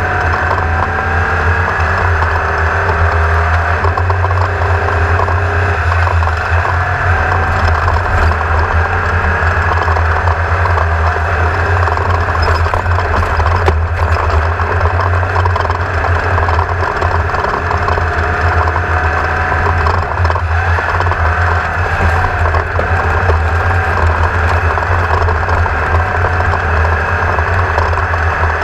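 An engine running steadily at an almost constant speed, with a strong low hum and pitch lines that waver only slightly.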